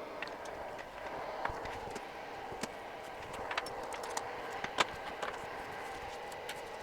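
A steady whir from bench equipment, with scattered light clicks and taps of small tools on the board, the sharpest about five seconds in.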